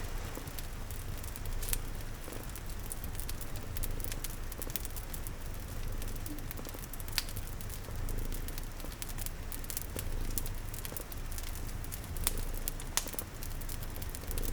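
Crackling fireplace with frequent sharp pops, layered with steady rain and a low, steady cat purr.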